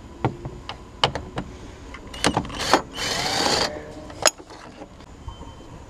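Cordless impact wrench whirring in a short burst about three seconds in, among several sharp clicks and knocks of the tool against metal.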